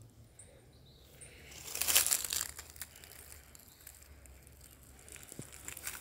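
A burst of crinkly rustling about two seconds in, then fainter scattered rustles and light clicks.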